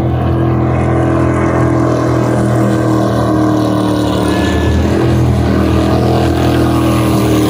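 Drag boat engine running hard and steady as the boat speeds past, with the hiss of its spray.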